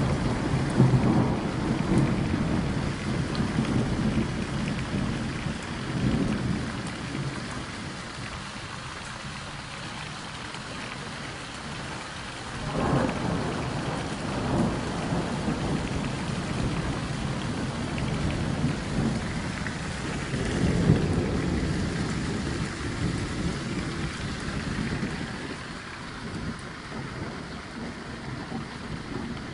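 Steady rain falling, with several low rumbles that swell and fade through it.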